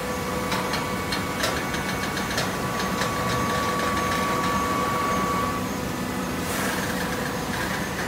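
Horizontal hydraulic baler running: a steady machine hum with a faint whine that stops about five and a half seconds in. A scatter of clicks and knocks comes in the first few seconds, and a short hiss near the end.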